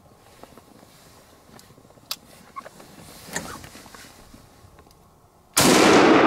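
A single gunshot, sudden and loud near the end, its report rolling away slowly for several seconds afterwards. Before it there are only faint rustles and a few small clicks.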